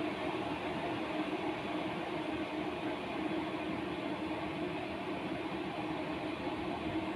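Scarlett SC-EK27G12 electric kettle heating water, a steady, unbroken noise.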